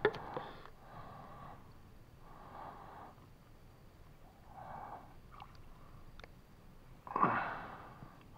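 Water swishing and splashing around a mesh fish-trap net as it is lifted and handled in a shallow stream, in a run of short swishes with a few small clicks, and one louder splash about seven seconds in.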